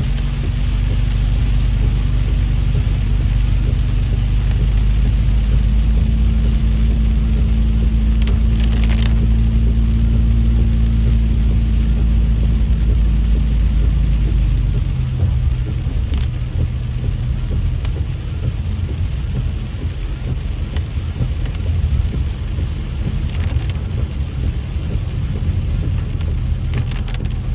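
Car driving on a wet road in heavy rain, heard from inside the cabin: a low engine drone under the hiss of tyres and rain. The drone drops off about halfway through, and a few brief clicks stand out.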